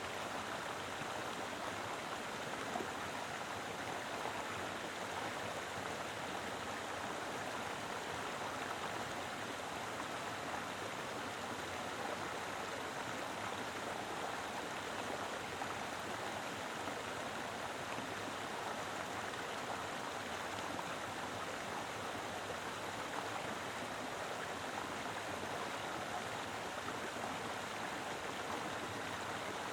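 A mountain river flowing: a steady, full rush of water over rocks, even throughout.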